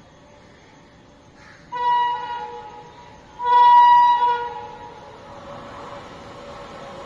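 Indian Railways locomotive horn on an approaching train: two blasts about a second and a half apart, the second louder. After them, the rumble of the train drawing near grows slowly louder.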